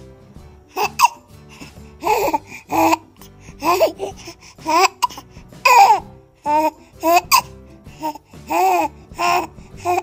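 A baby making about a dozen short, high-pitched vocal sounds, laugh-like and babbling with rising and falling pitch, over steady background music.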